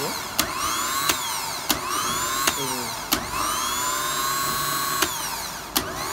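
Rewound truck starter motor run on a 12-volt battery, switched on and off through its solenoid again and again: each time a sharp clack, then a whine that rises as the armature spins up and falls as it runs down. This happens seven times, with one longer run in the middle.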